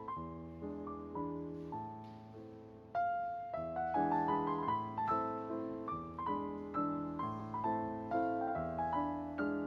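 Gentle solo piano background music, notes struck one after another and left to ring, growing louder about three seconds in.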